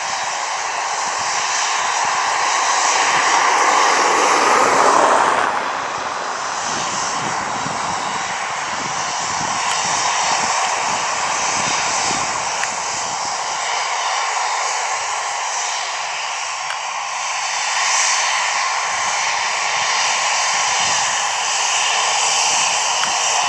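Airliner engines running loud and steady as an aircraft moves past close by; about five seconds in the sound peaks and its pitch drops sharply as it goes by, then the engine noise carries on evenly.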